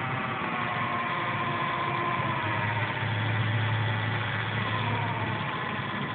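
Small DC motor spinning a blade on its shaft at several thousand rpm, a steady whine over a whirring buzz. Its pitch wavers and sinks about two-thirds through as the motor is slowed.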